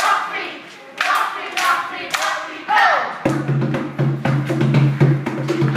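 A few loud voice calls, then about three seconds in, drum-led dance music starts abruptly: a quick, even drum beat of about four strokes a second over a held low tone.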